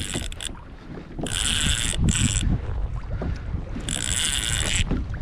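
Fishing reel drag buzzing twice, about a second each time, as a hooked fish, believed to be a tuna, pulls line off against a loosely set drag; wind rumbles on the microphone throughout.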